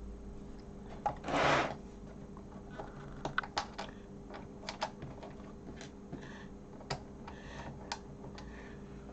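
Scattered small clicks and taps of screws and the Sinclair QL's plastic case being handled while it is screwed back together, with a short scraping rustle about a second and a half in.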